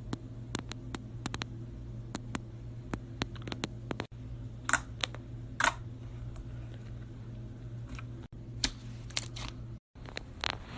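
Slime being stirred with boric acid water in a bowl: scattered soft clicks and taps of the utensil on the bowl, a few louder ones near the middle, over a steady low hum.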